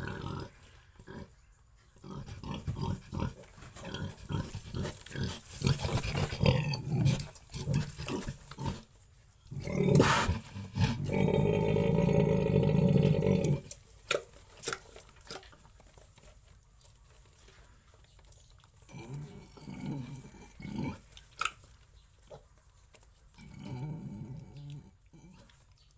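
A sow and her piglets vocalizing: a busy run of short grunting sounds, then one loud call lasting about two and a half seconds, and a few quieter grunts near the end.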